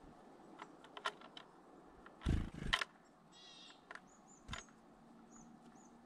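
Light taps and then two heavy knocks on a wooden bird feeder a little after two seconds in. They are followed by a short harsh bird call and a few thin, high, very short bird notes.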